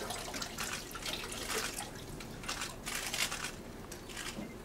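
Water dripping and trickling off a laptop as it is lifted out of a tub of water, falling back into the water in irregular patters and splashes.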